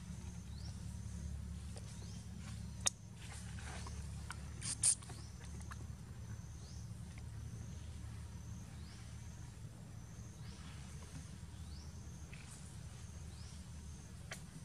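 Outdoor ambience with a short, high chirp repeating about one and a half times a second over a steady low rumble. Two sharp clicks come about three and five seconds in, the second being the loudest sound.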